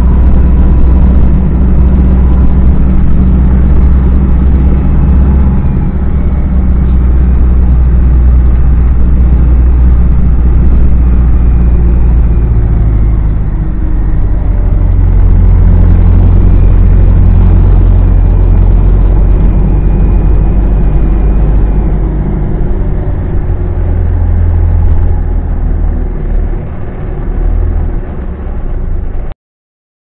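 City bus engine droning steadily under way, heard inside the passenger cabin, with a steady low rumble and faint whine. The drone eases and wavers in the last few seconds, then cuts off abruptly just before the end.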